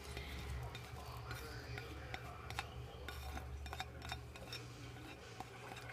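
Light, scattered clicks and taps as a spatula scrapes chopped onion, garlic and jalapeño off a cutting board into a slow cooker, over a low steady hum.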